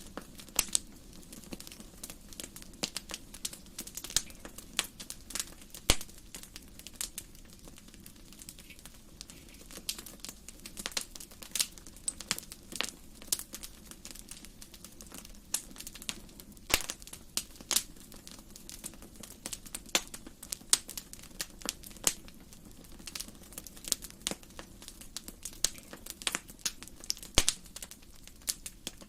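Wood fire crackling, with irregular sharp pops and snaps over a low steady rush of flame.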